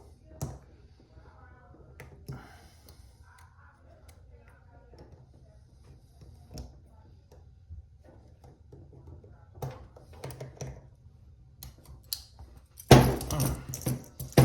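Steel handcuffs being worked at in an escape attempt: small metallic clicks and scrapes, then about 13 s in a loud burst of rattling and clinking metal.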